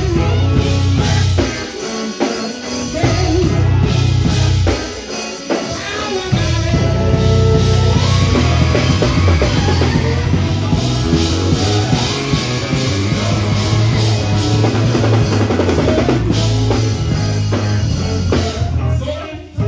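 Live gospel band playing loudly: drum kit and electric guitar over a heavy bass line. The low end drops out briefly twice in the first six seconds, then the full band comes back in.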